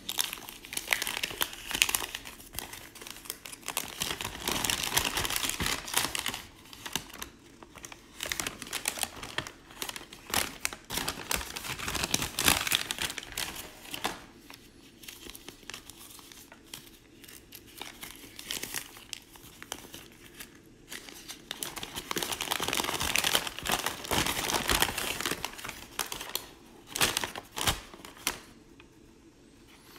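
A folded paper instruction manual being unfolded and handled, with irregular crinkling and rustling of the paper. It is busiest in the first few seconds and again a few seconds before the end, and sparser in the middle.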